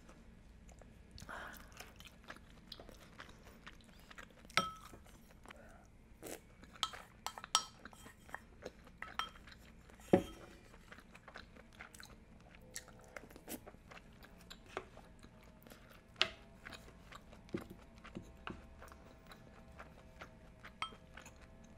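Close-miked eating of budae jjigae: chewing and mouth sounds with scattered sharp clicks of a spoon and chopsticks against the pot, the loudest click about ten seconds in.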